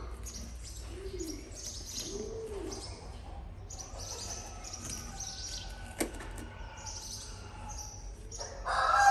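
Small birds chirping over and over, with a few low arching calls from another bird in the first three seconds and a single sharp click about six seconds in.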